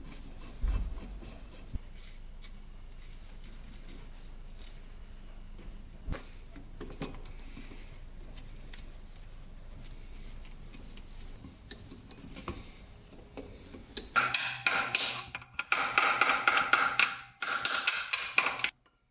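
Hand tools working metal parts of a rusty motorcycle engine case: a few faint metal clicks, then about fourteen seconds in a few seconds of loud, rapid metallic clinking and rattling that cuts off abruptly.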